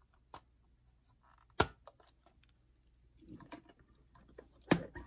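Sharp clicks and light knocks of LEGO plastic pieces being handled, and the toy jeep and trailer set down on a tabletop. Three clicks stand out, the loudest about a second and a half in, with faint rustling between.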